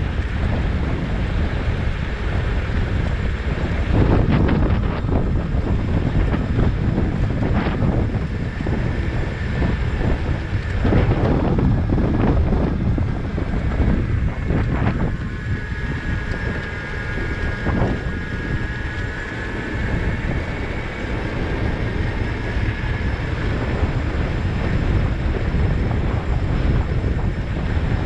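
Wind buffeting the microphone of a handlebar-mounted camera on a moving bicycle: a steady low rumble with a few sharp knocks scattered through it. A faint high whine comes in for several seconds about halfway through.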